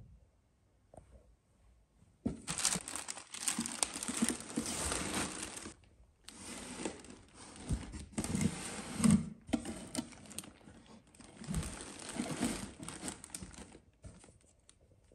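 Paper and plastic packaging crinkling and rustling as the contents of a box are unwrapped and handled. It starts about two seconds in and comes in three long stretches with short breaks, loudest just past the middle.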